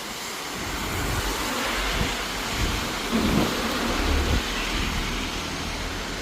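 City bus drawing up with a low engine rumble that swells and eases, over the hiss of rain and tyres on the wet road.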